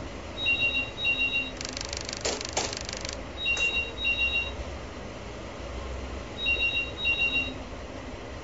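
A telephone ringing in the British double-ring pattern: two short rings, then a pause of about two seconds, three times over a low steady rumble. A loud rushing hiss cuts in briefly about two seconds in.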